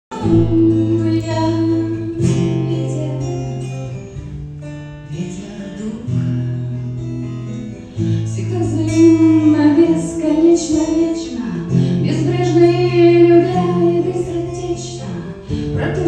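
Acoustic guitar played live with a woman singing over it; the chords change about every two seconds.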